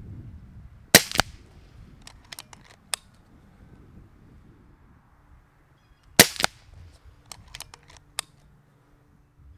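Two shots from a Kral Puncher Breaker .22 PCP air rifle, about five seconds apart, each a sharp crack followed almost at once by a second, slightly quieter crack. After each shot come a few quick small clicks as the rifle's action is cycled for the next pellet.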